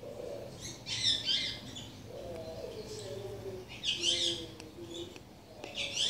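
Indian ringneck parakeet giving short, high chirping calls three times: about a second in, around four seconds, and again near the end.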